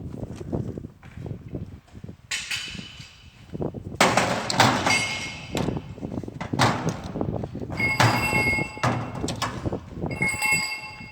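Metal parts being knocked and handled, with three heavier clanks about 4, 8 and 10 seconds in that each leave a ringing, bell-like tone hanging for about a second.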